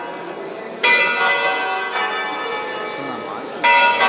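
Three bells of Santa Maria Maggiore's eight-bell ring swinging in a distesa, the weekday peal sounded a quarter hour before Mass. Three strokes ring out, the second fainter, each clang ringing on and dying away under the next.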